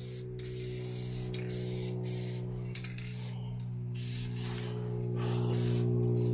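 Spray gun hissing as it sprays a coating in stretches, with short breaks as the trigger is let go, over a steady low hum.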